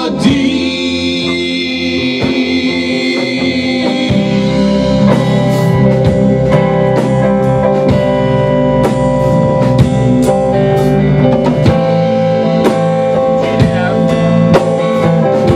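Rock band playing live in a small room: electric guitars and a drum kit, the singer holding the last sung word for the first few seconds before the band plays on without vocals.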